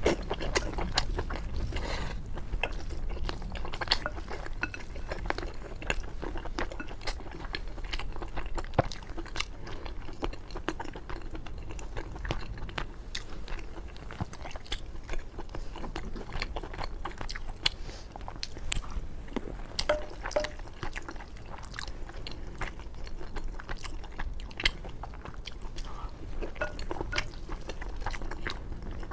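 A person chewing and biting mouthfuls of braised pork and rice close to the microphone, with many small wet clicks and smacks.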